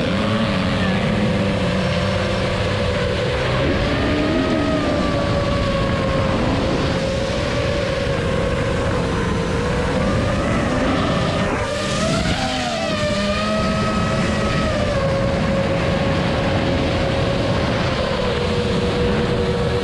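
FPV racing quadcopter's brushless motors and 5-inch props (Emax ECO II 2306 1700KV on 6S) whining steadily, the pitch drifting up and down with throttle, over a low wind rush on the onboard camera. Dirt bike engines rev underneath, with a cluster of rising and falling revs about twelve seconds in.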